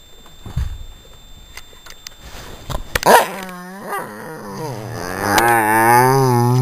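Angry chihuahua growling in two long wavering growls. A sharp onset comes about three seconds in, and the second growl, longer and louder, runs through the end.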